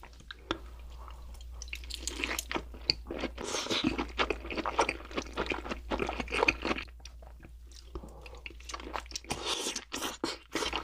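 Close-miked chewing of crunchy food: a dense run of quick crackling crunches, easing off briefly in the middle before picking up again.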